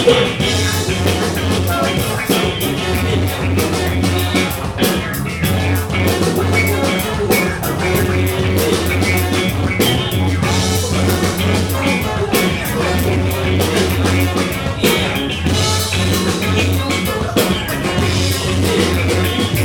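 Live band playing an instrumental passage: drum kit, bass guitar and electric guitar in a rock/ska groove, loud and steady.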